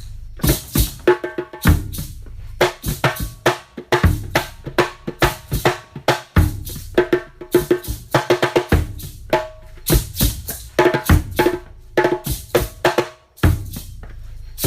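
Nyahbinghi drumming: hand drums struck in a quick, steady rhythm of several strokes a second, with deep bass-drum thumps falling among the sharper strikes.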